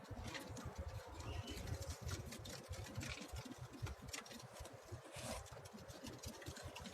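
Domestic pigeons moving about in their loft: scattered light clicks and scuffs of feet and wings, faint throughout.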